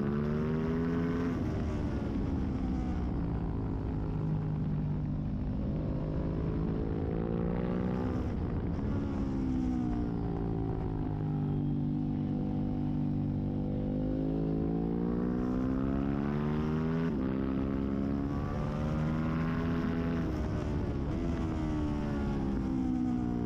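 Sport motorcycle engine at speed on a race track, its pitch climbing for several seconds at a time and falling away, with abrupt jumps in pitch a few times as gears change.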